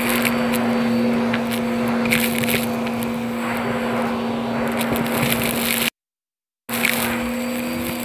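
Vacuum cleaner running with a steady hum while its hose-end nozzle sucks up a pile of carpet dirt, lint and small plastic bits, which crackle and click as they rattle up the wand. The sound cuts out completely for under a second about six seconds in.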